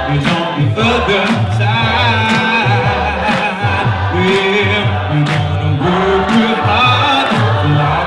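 A cappella choir singing a gospel song in harmony, with sustained deep bass voices under the higher parts.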